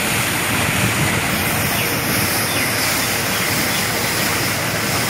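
Tractor-mounted hydraulic road broom at work: its rotating brush sweeping across concrete while the tractor runs, a steady rushing noise without breaks.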